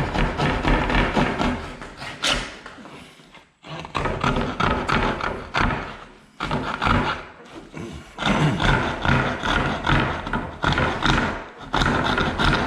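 Coping saw cutting the back of a wood crown molding cope: rapid back-and-forth rasping strokes in several runs, with brief pauses between them.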